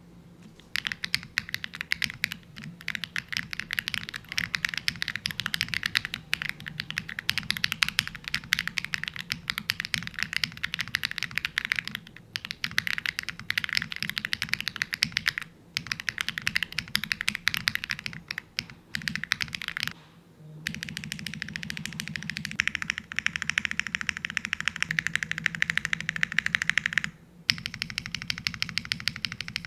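Lucky65 mechanical keyboard with HMX Hyacinth V2 switches and PBT keycaps being typed on fast and continuously. The rapid key clacks stop briefly a few times.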